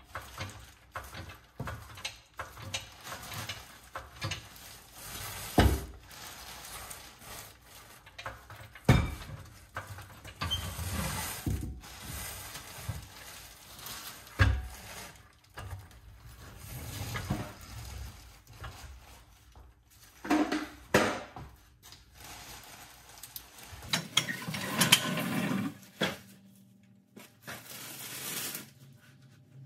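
Irregular metal clanks and knocks with rolling and scraping, as a steel trailer axle resting on a floor jack is wheeled out over a concrete floor. Several sharper knocks stand out, the loudest about nine seconds in.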